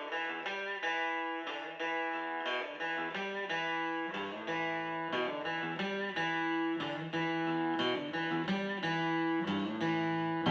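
Guitar music: picked notes at a steady pace, about two a second.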